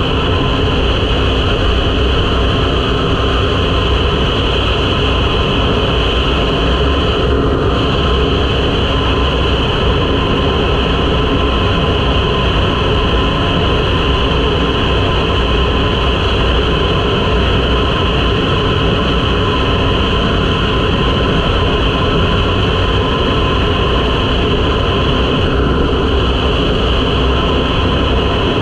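A 2023 KTM 500 EXC-F's single-cylinder four-stroke engine running steadily at highway cruising speed, mixed with rushing wind.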